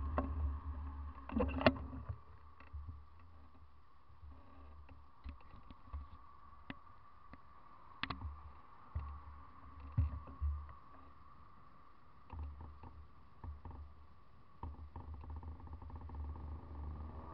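Quiet road traffic picked up by a bike-mounted action camera: a low rumble of vehicles that swells and fades several times, with a few short knocks and a faint steady hum.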